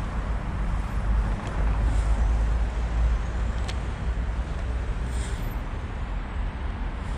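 Steady outdoor rumble of city traffic, with wind buffeting the microphone, and one brief sharp click about halfway through.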